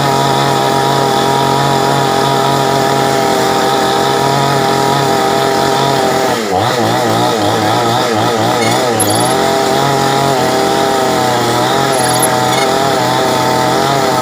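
Two-stroke chainsaw running steadily, its engine pitch wavering up and down in the middle and again later as it comes under load while cutting through the trunk of a wind-felled durian tree.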